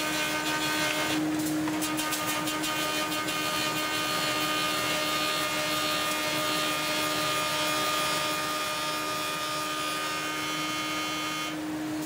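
Wood-turning lathe running with a steady machine hum as its cutter turns a wooden blank into a funnel shape. The sound breaks off briefly about a second in and again near the end.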